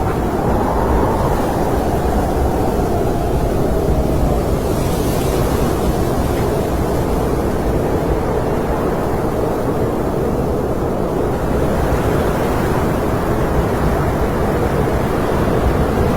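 Snowstorm wind blowing steadily and heavily, with a low howl whose pitch sinks slowly in the first few seconds.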